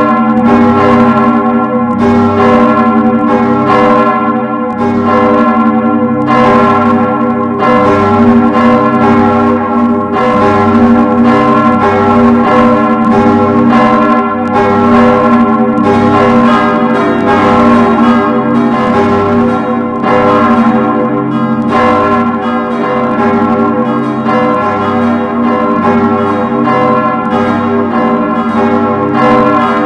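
Several church bells ringing together. Strokes come a few times a second, each one ringing on into the next.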